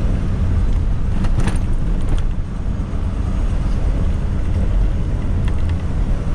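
Pickup truck driving, heard from inside the cab: a steady low rumble of engine and tyres, with a couple of brief knocks or rattles about a second and a half and two seconds in.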